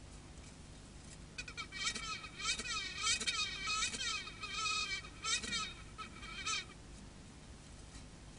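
Male tsetse fly buzzing its wings in copulatory courtship while mounted on the female. It is a series of buzzy pulses lasting about five seconds, starting about a second and a half in, with the pitch wavering up and down.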